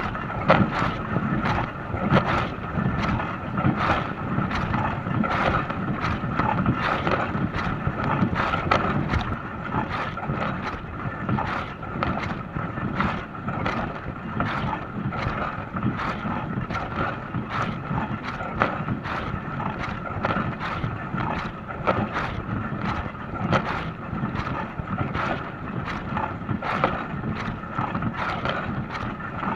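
Dishwasher running its wash cycle: water spraying and splashing steadily inside the tub, with a constant whine from the machine's motor under it.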